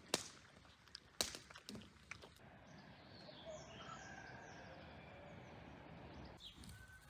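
A few sharp clicks, the two loudest in the first second and a half, then faint bird chirps, including a quick falling run of high notes, over low outdoor background.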